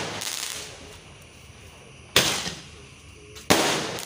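Fireworks bursting overhead with sharp bangs, one about two seconds in and another a second and a half later. Each bang fades out over about half a second, and the tail of an earlier bang is still dying away at the start.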